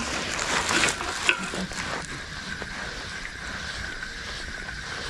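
Spinning reel being cranked to retrieve line: a sharp click about a second in, then a steady whine from the turning reel.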